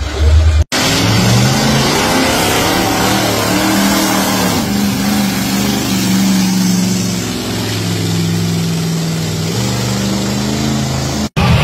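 Engine of a lifted pickup on big mud tires revving hard as it pulls through deep mud. The pitch rises and falls, then holds fairly steady under load. The sound cuts out abruptly just under a second in and again near the end.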